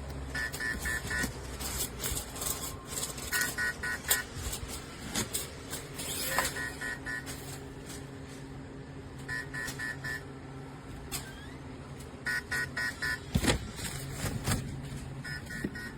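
Electronic beeping: short bursts of about four quick high beeps repeating every three seconds, over a steady low hum with scattered clicks.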